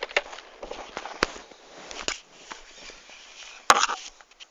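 Plastic rattling and clicking as a Nerf Retaliator's 12-dart magazine is loaded with foam darts. Two sharp clicks stand out, about a second in and a louder one near the end.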